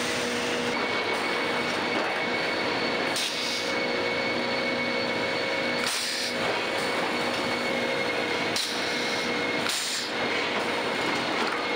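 Veneer dryer feed machinery running in a mill: a steady mechanical din with a few constant hum tones, cut by four short hisses.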